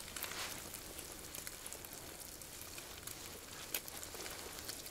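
Faint steady sizzling hiss with a few small crackles from a pot cooking on a camp stove.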